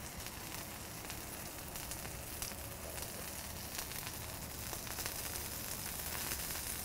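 Beef burger patty sizzling steadily on a Blackstone flat-top griddle, with a few faint clicks of a metal spoon.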